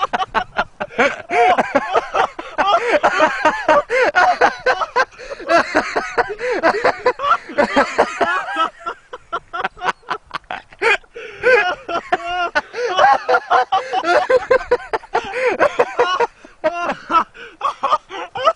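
Excited human voices, talking and laughing in quick, broken bursts, just after a firecracker blast.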